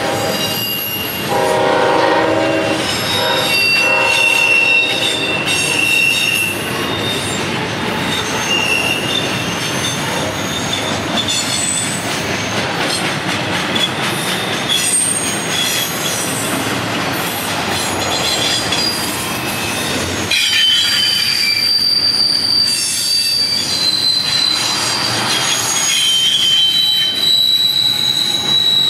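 Locomotive air horn sounding a chord in the first few seconds as a CSX intermodal train passes. Then the cars' wheels squeal high-pitched and continuously on the curve, over the steady noise of the rolling train.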